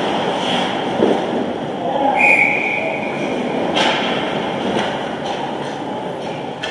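Ice hockey rink noise of skates, sticks and players, with a couple of sharp knocks and one short, steady referee's whistle blast a little over two seconds in, stopping play as a goal is scored.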